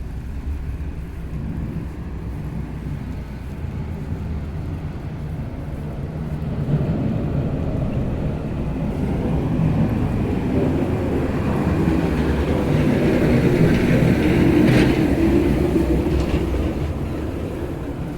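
A heavy vehicle rumbling past in the street: the noise builds over several seconds, is loudest about three-quarters of the way through, then fades away.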